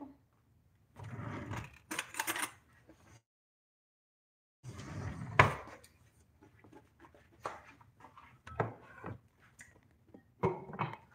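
Scattered knocks, clicks and rustles of handling, with one sharp knock about five seconds in. The sound drops out completely for about a second and a half in the middle.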